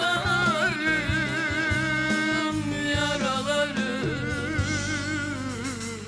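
Turkish folk song (türkü) performed live: a voice draws out long, wavering, ornamented notes over bağlama and band accompaniment. The music fades near the end as the song closes.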